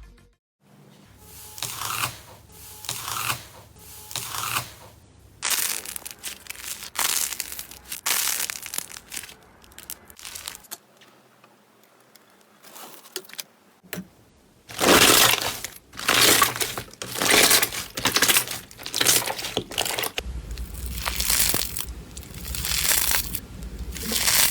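Slime being squeezed and pressed by hand, crackling and crunching in repeated irregular bursts. The bursts get louder and come thicker in the second half.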